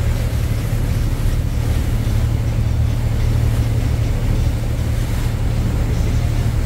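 Tour boat's engine running under way: a steady low drone with an even hiss over it.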